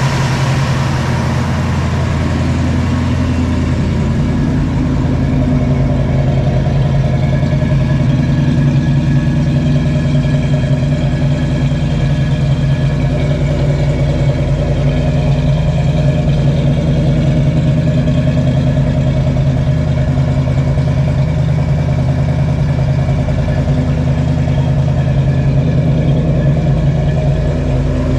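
1968 Ford Mustang's 289 small-block V8 running steadily at idle.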